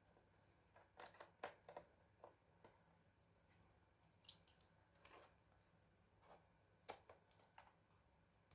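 Scattered light clicks and taps of hands working on a laptop's plastic case and small parts, about a dozen irregular ticks. The loudest is a sharp click a little past the middle.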